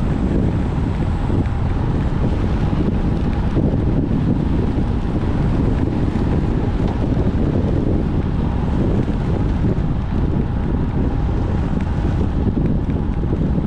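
Wind buffeting a GoPro's microphone while riding a road bike: a loud, steady rushing noise, with a faint steady whine underneath.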